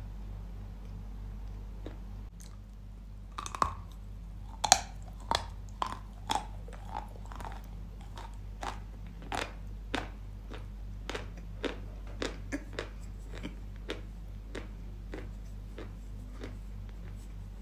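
Dry Yampol chalk being bitten and chewed. Two sharp bites come about three and a half and four and a half seconds in, the second the loudest. A run of crisp crunches follows, roughly two a second, growing sparser and fading out near the end.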